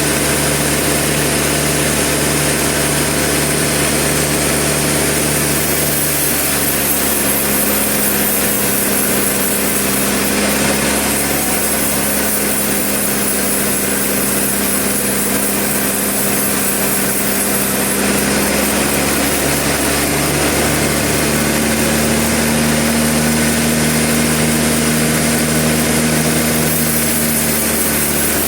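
Sawmill's engine running steadily under power, its pitch stepping up about six seconds in and rising slightly again near the end.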